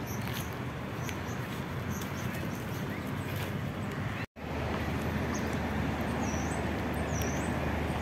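Steady hum of road traffic and parked-car surroundings, with a small bird chirping over it, short high chirps that turn into repeated dipping-and-rising calls about once a second in the second half. The sound cuts out for an instant about four seconds in.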